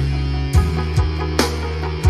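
Instrumental background music with a steady beat and plucked strings.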